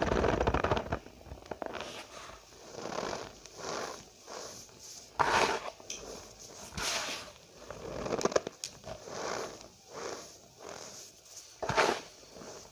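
Cornstarch powder being pressed and squeezed by hand, giving soft squeaky crunches in irregular bursts, a few of them louder.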